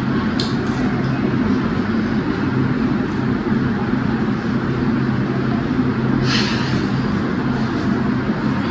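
A steady, even mechanical drone with a low hum, like a motor or fan running, and a brief burst of hiss about six seconds in.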